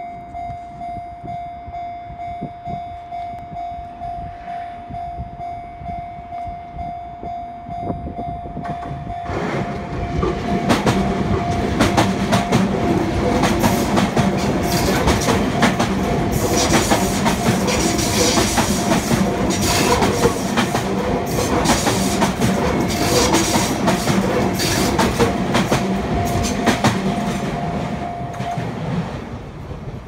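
Japanese level-crossing warning bell ringing in a steady repeating ding while a Sotetsu 8000 series electric train passes from about nine seconds in, its wheels clattering over the rail joints. The bell stops near the end as the train clears and the barrier lifts.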